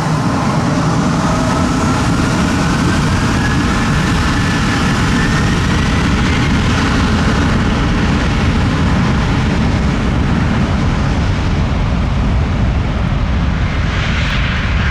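Embraer ERJ-195LR's two General Electric CF34-10E turbofans running at high power for takeoff: a loud, steady jet roar with a whine that rises in pitch over the first several seconds as the engines spool up.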